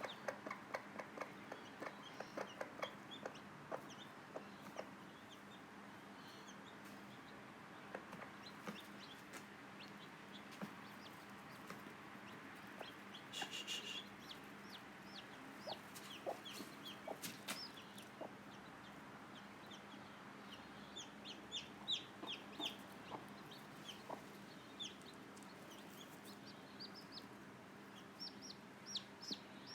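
Mother hen giving her rapid clucking food call to her chicks, a quick run of low clucks over the first few seconds, then sparser. Day-old chicks answer with short, high, falling peeps in clusters later on.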